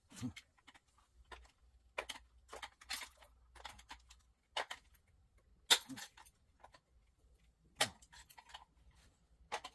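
Scattered clicks, taps and scrapes of a screwdriver working against the metal motor housing of an old ceiling fan as it is pried at and handled, with a sharp knock about halfway through.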